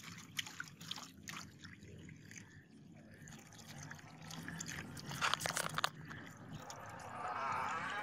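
Acid poured from a plastic bottle into a foil-lined tray, splashing and trickling over a rusty cleaver blade to fill a rust-removal bath. Scattered drip-like ticks come first, and the pour grows fuller and steadier in the second half.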